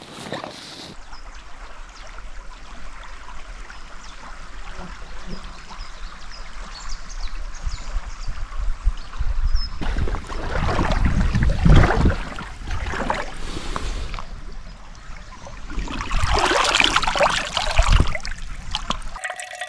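Shallow river water splashing around wading legs, then a soft water bottle held under the surface and filled, gurgling and splashing most loudly in the last few seconds.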